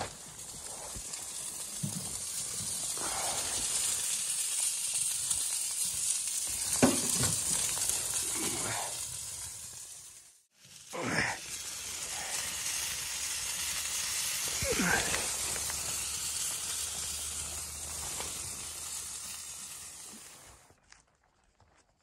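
Chicken sizzling on a wire grill over an open wood-stove firebox, a steady frying hiss with a few brief squeals and pops from the cooking meat and fire. The hiss breaks off briefly a little before halfway, then carries on.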